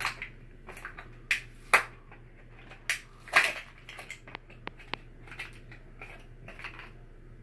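Plastic toy packaging being pulled and torn open by hand: irregular crackles and sharp clicks, with the loudest crinkling tears about a second and a half and three and a half seconds in, and a run of quick small clicks around four to five seconds in.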